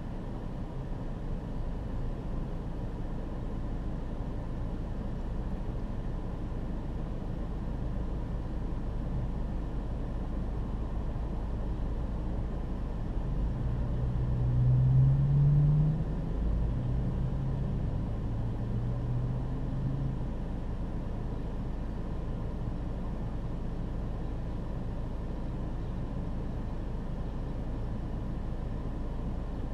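Vehicles moving through a traffic checkpoint: a steady low engine rumble, with one vehicle's engine note rising as it pulls away about halfway through, then a second, lower engine note a few seconds later.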